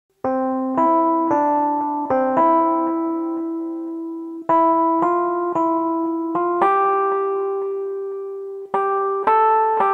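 Background music: a piano playing a slow melody of struck notes and chords, each left to ring and fade before the next.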